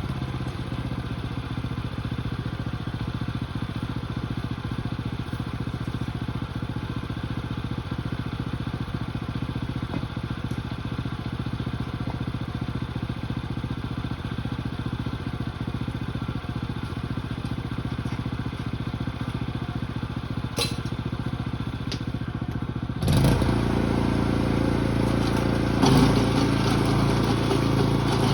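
Small engine running steadily with an even note. About three-quarters of the way through, the sound suddenly gets louder with a different engine note.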